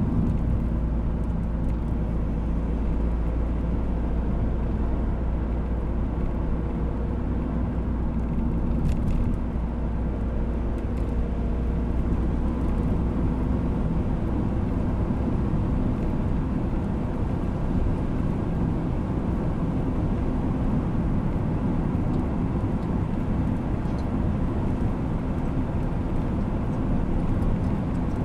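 Steady engine and tyre noise heard inside the cab of a vehicle driving at a constant speed, a continuous low rumble with a faint hum.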